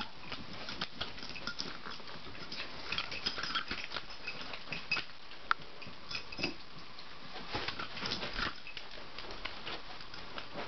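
Two dogs playing on carpet: light patter and scuffling of their paws, with scattered small clicks and one sharp click about halfway through.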